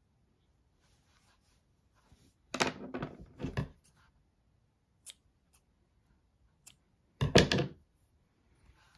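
Scissors snipping a crocheted yarn tail, with handling noise: two short, loud clusters of clicks and rustles about two and a half and seven seconds in, and a few faint single clicks between them.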